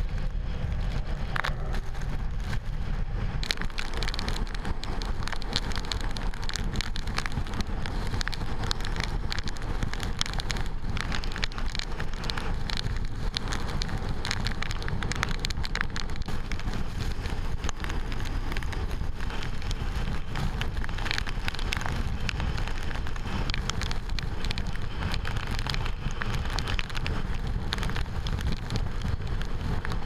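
Typhoon wind and driving rain: a steady low rumble of gusts buffeting the camera's microphone under a dense patter of rain and spray striking the camera, with the rough sea surging beneath.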